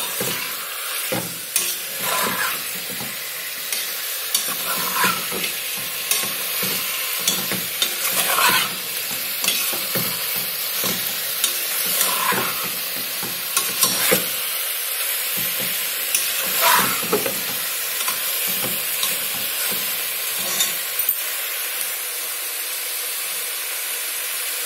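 Chicken pieces sizzling as they fry in ginger-garlic paste in an aluminium pressure cooker. A ladle stirs them, scraping and knocking against the pot at irregular intervals. The stirring stops near the end, leaving only the steady sizzle.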